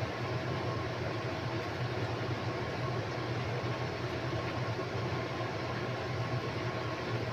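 Steady hum of a running motor: a low drone with a few faint steady tones above it, even throughout.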